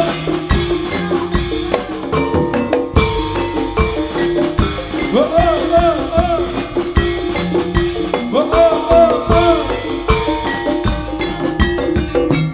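Live jaranan ensemble playing: drums and struck gamelan metal percussion keep a dense, even beat. A wavering melody line comes in twice around the middle.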